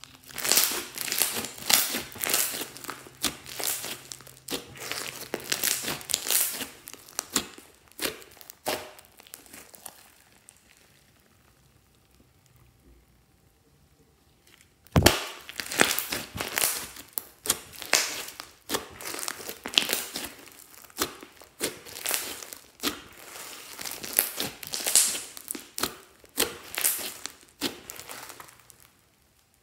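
Hands squeezing, folding and stretching soft slime with small beads mixed in, making a rapid run of wet, sticky crackles and pops. It goes quiet for a few seconds around the middle, then starts again with a sudden thump.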